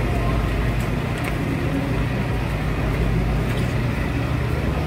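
Steady low engine-like rumble with a hum, holding level throughout.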